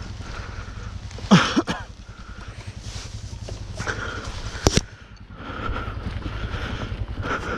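A steady low rumble with bursts of rustling and scraping, as the rider shifts against a body-mounted action camera. The loudest moments are a sudden knock with a short falling tone about a second and a half in and a sharp knock near five seconds.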